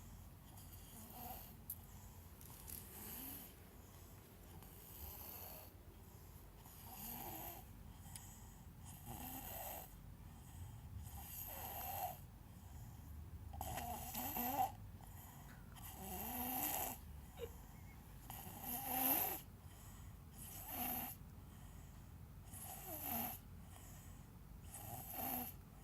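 A small child snoring in sleep: a rasping breath about every two seconds, some louder than others.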